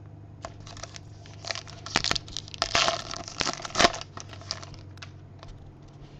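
Crinkly wrapper of a 2015 Topps Heritage High Number baseball card pack being torn open by hand. A run of crackling rips and crinkles comes loudest around three to four seconds in, then dies down to a few light ticks as the cards come out.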